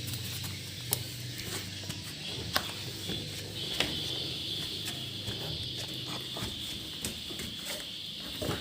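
Swiftlets clicking inside a nesting house: scattered sharp single clicks about a second apart, with a steady high-pitched buzz that sets in about four seconds in.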